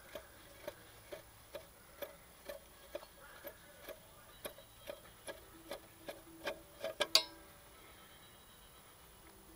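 Hand tap in a tap wrench chasing a stiff exhaust bolt thread in a diesel engine's cylinder head: light, regular clicking about twice a second. It ends with a sharper clack a little after seven seconds as the tap comes free.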